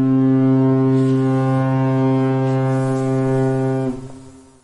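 Ship's horn sounding one long, low, steady blast that ends about four seconds in and dies away with a short echoing tail.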